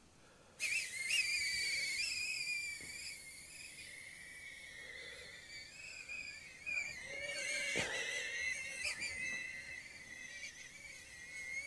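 BetaFPV Cetus FPV micro quadcopter in flight on a 1S battery, its tiny motors and propellers giving a high-pitched whine that wavers up and down in pitch. The whine starts about half a second in.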